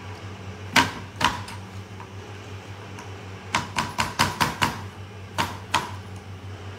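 Knife cutting an apple on a wooden cutting board: sharp knocks of the blade striking the board, two about a second in, a quick run of several around four seconds in, and two more near the end. A steady low hum runs underneath.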